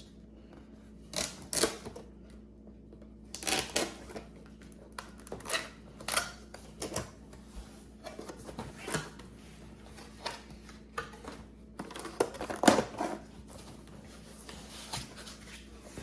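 Cardboard box and packaging being opened and handled: irregular clicks, scrapes and rustles in short bursts, the loudest about three-quarters of the way through.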